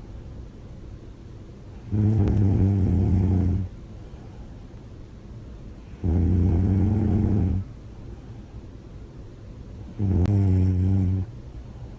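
A woman snoring loudly with her mouth open. There are three snores about four seconds apart, each a low buzzing sound about a second and a half long.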